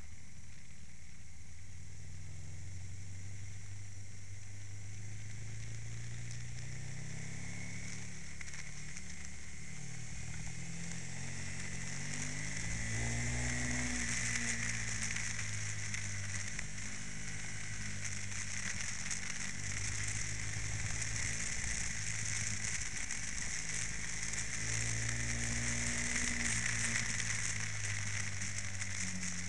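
Aprilia sportbike engine pulling under way, its pitch rising and falling several times as the rider accelerates and backs off, under a steady rush of wind hiss on the onboard microphone.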